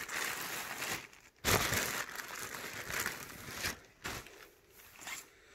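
Clear plastic poly bags around new clothing crinkling and rustling as they are handled and shifted, in a few irregular bursts that die down near the end.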